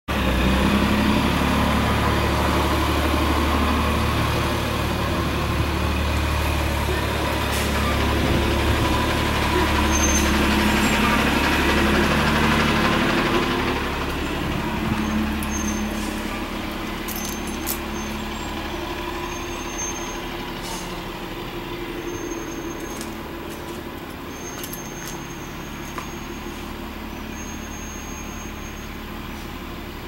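A motor vehicle's engine running, a steady low rumble that drops to a quieter hum about halfway through.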